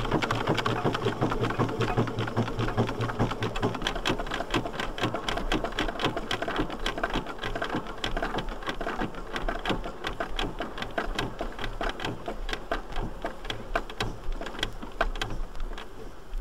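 1910 Davey Paxman agricultural steam traction engine running, its exhaust beats coming fast and even with mechanical clatter from the motion.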